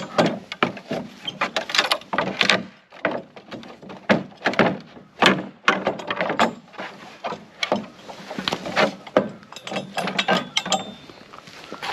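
A pallet board being pried off its wooden pallet with a pallet buster: a dense run of wood creaking, cracking and knocking, with the nails squeaking as they pull loose.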